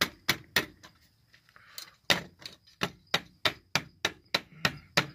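A homemade HHO electrolysis cell knocked repeatedly against concrete, sharp knocks, three quick ones, then after a pause a steady run of about three a second. It is knocking loose the deposit that had grown between the cell's plates and fused them together.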